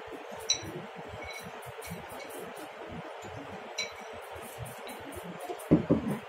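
Light metallic clinks of a steel padlock being handled against a short iron pry bar, over a low steady hiss, with a couple of louder knocks near the end.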